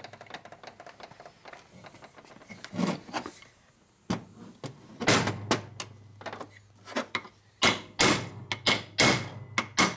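Hammer blows on a brass punch, driving a bearing race down onto the shaft of a Harley-Davidson 4-speed transmission case. A few faint clicks of handling come first; the sharp strikes start about halfway through and follow every half second or so.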